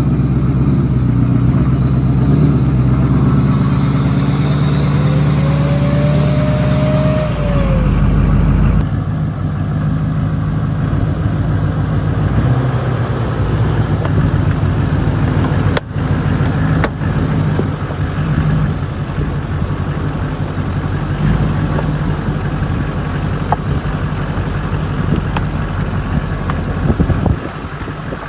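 Lifted pickup truck's engine running as it drives, with a short whistle that rises and falls in the first several seconds. After a break about nine seconds in, the engine runs steadily at low speed as the truck creeps onto a pallet-and-lumber platform, with two sharp clicks about halfway through.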